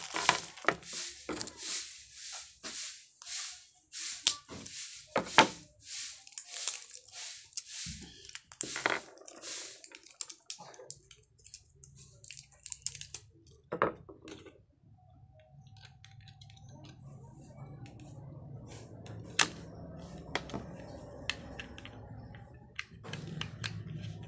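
Rapid scraping and rubbing from hands working small solar floodlight parts against a wooden table, then a few sharp clicks over a steady low hum that sets in about halfway through.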